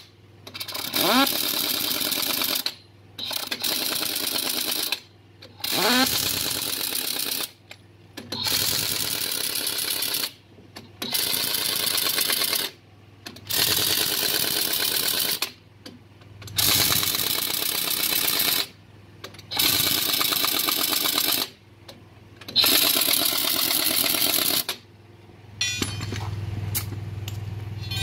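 Heavy air impact wrench hammering a truck wheel's lug nuts in about nine runs of roughly two seconds each, with short pauses between nuts and a rising whine as some runs spin up; this is the wheel being tightened back on. A few light clicks near the end.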